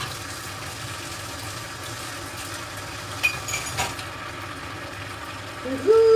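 Vegetables frying in a pan on an induction hob: a steady sizzle, with a couple of faint clicks a little past halfway. A woman's voice starts to sing right at the end.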